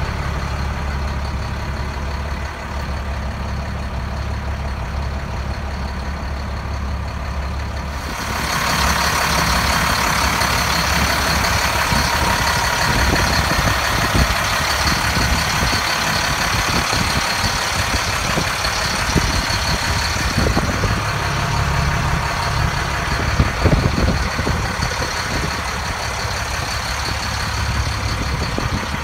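Diesel engine of a 2006 Sterling Acterra dump truck idling with a steady low rumble. About eight seconds in, a loud steady hiss starts up over it and continues.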